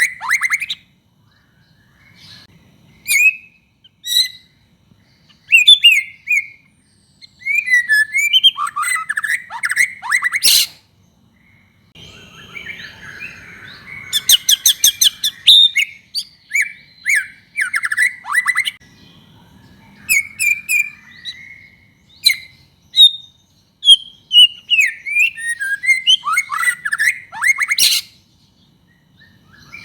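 White-rumped shama singing in full song: varied whistled phrases that slide up and down, broken by bursts of rapid chattering trills, with short pauses between phrases.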